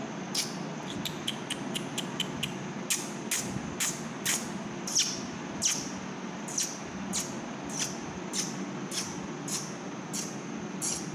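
A small bird at a window pane making a long series of short, sharp, high-pitched ticks, about two a second with a quicker flurry between one and two and a half seconds in, as it reacts to its own reflection in the glass. A steady low hum runs underneath.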